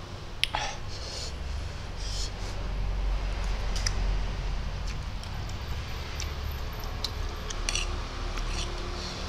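Close-up eating sounds: spicy instant noodles slurped in and chewed, with a few sharp clicks of a metal fork and spoon against a ceramic plate.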